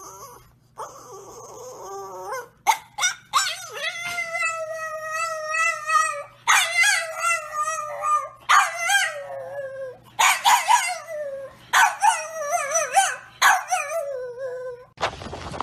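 A French bulldog howling: a short rising whine, then a series of long, wavering howls, each sliding down in pitch as it trails off.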